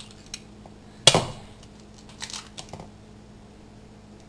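An egg knocked once against the rim of a stainless steel mixing bowl about a second in: a sharp clink with a short ring. A few faint clicks follow as the shell is pulled apart.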